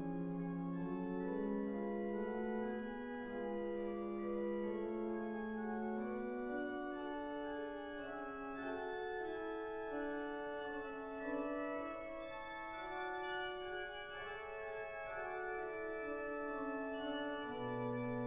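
Cathedral pipe organ playing a slow voluntary of sustained chords, several notes held together and moving in steps; a deep pedal note comes in near the end.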